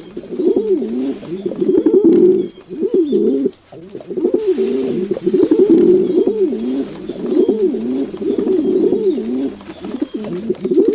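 Several domestic pigeons cooing, their low rolling coos overlapping almost without a break, with a short lull about three and a half seconds in.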